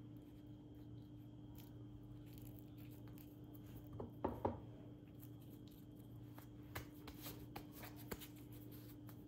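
Faint taps and rustles of hands handling and folding samosa pastry, loudest about four seconds in and again scattered near the end, over a steady low hum.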